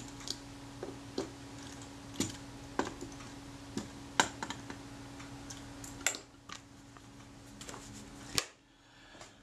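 Small screwdriver doing up the screws on the metal side cover of a Rolleiflex Automat TLR: scattered, irregular small metal clicks and ticks. There is one sharper click near the end.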